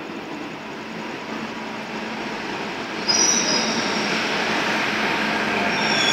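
Delhi Metro train arriving at the platform: the rush of its wheels and running gear grows steadily louder as it approaches, then jumps louder about three seconds in as the cars sweep past close by. High squealing tones from the wheels come in at that point and again near the end.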